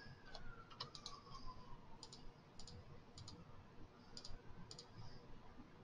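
Faint, scattered clicks of a computer mouse, a dozen or so at irregular intervals.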